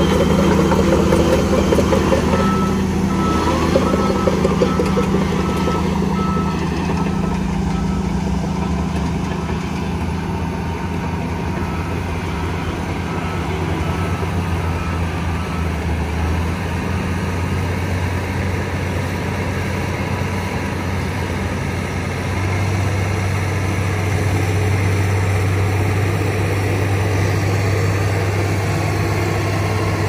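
Shantui bulldozer's diesel engine running steadily as it pushes a pile of sand, with a backup alarm beeping repeatedly from about two seconds in to about halfway through. The engine note shifts about three quarters of the way in.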